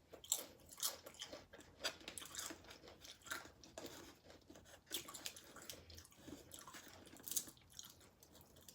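Close-up chewing and crunching of tortilla-chip nachos with black beans: irregular crisp crunches with wetter chewing in between, several louder bites spread through.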